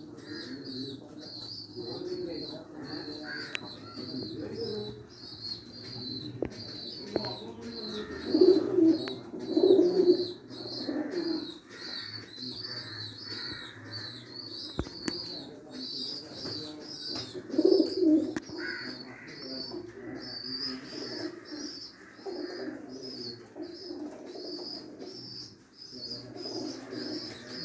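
Domestic pigeons cooing, several birds overlapping, loudest about eight to eleven seconds in and again around eighteen seconds. A high, thin chirp repeats about twice a second throughout.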